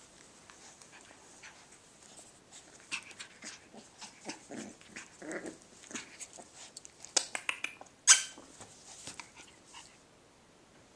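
Cavachon puppies playing: short, scattered puppy vocal sounds and scuffling, with a quick run of sharp clicks about seven seconds in and one loud noisy burst just after.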